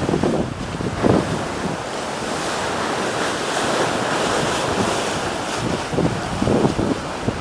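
Sea water rushing along the hull of a J30 sailboat surfing downwind offshore, the rush swelling through the middle, with gusts of wind buffeting the microphone at the start and near the end.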